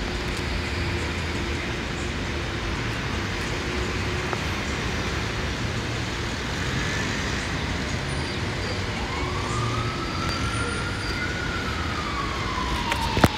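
A New York City subway 4 train approaches on elevated track with a steady rumble. In the second half a siren wails, its pitch rising, falling and rising again. A sharp click sounds near the end.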